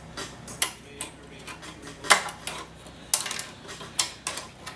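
Sheet-metal DMD board cover of a DLP TV's light engine being handled and pressed into place by hand: about half a dozen sharp metallic clicks and taps, irregularly spaced, over light scuffing.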